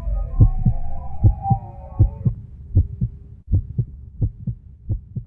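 Low, regular heartbeat-like thumping, about four thumps a second, growing fainter toward the end. Faint music sits over it and cuts off a little over two seconds in.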